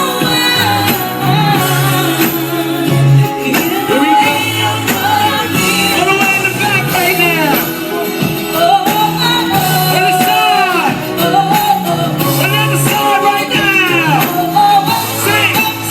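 Live band music with singing: a sung melody over a steady bass line and drums.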